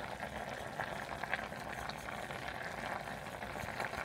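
Stovetop cooking noise: a steady bubbling and crackling with many small irregular pops, from food simmering and boiling on the stove.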